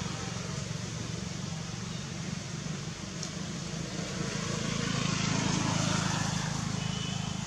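A steady low motor drone with a hiss over it, swelling a little about four seconds in.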